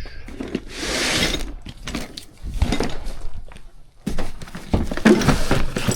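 Close rustling and scraping of gear being handled, in three long bursts with a few sharp clicks between them.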